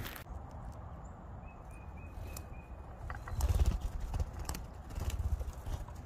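Outdoor ambience with a low rumbling noise that swells twice, a few scattered clicks, and a faint, thin high bird note repeated briefly about two seconds in.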